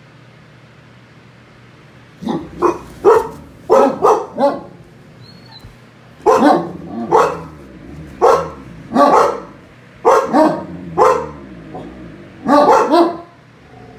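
Dog barking repeatedly. After about two seconds of quiet it starts with a quick run of barks, then keeps going with single barks and pairs about a second apart.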